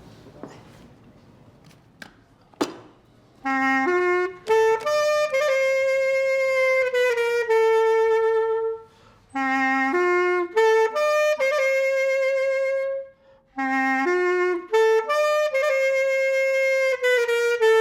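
A single wind instrument plays the same short melodic phrase three times, each rising by steps to a long held note, with brief pauses between.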